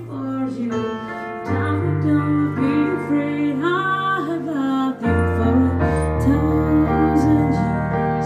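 A woman singing into a microphone over a keyboard accompaniment, her held notes wavering above steady bass notes that change about a second and a half in and again about five seconds in.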